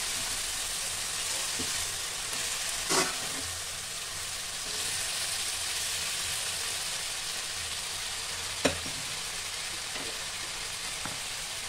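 Shredded cabbage sizzling in hot oil in a kadhai as it is stirred with a steel spoon: a steady frying hiss, with the spoon knocking against the pan twice.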